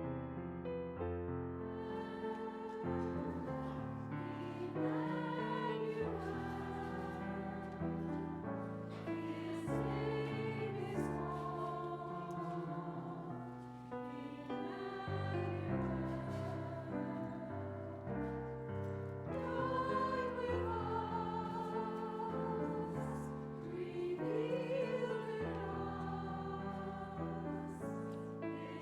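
Choir singing with piano accompaniment, held notes with a slight waver in the voices.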